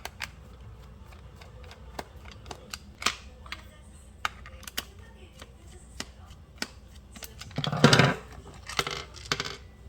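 Scattered light clicks and clinks of small parts and tools being handled, with a louder clattering scrape about eight seconds in.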